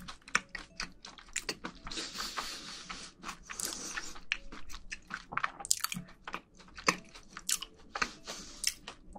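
Close-miked chewing of a mouthful of food: a quick, irregular string of wet, clicky mouth sounds, with a breathy stretch about two to four seconds in.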